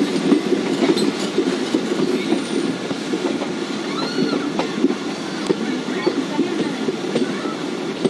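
Passenger train coaches running along the track, heard from an open doorway: a steady rumble of wheels on rails with many irregular clicks, and a few brief high squeals from the wheels on the curving line.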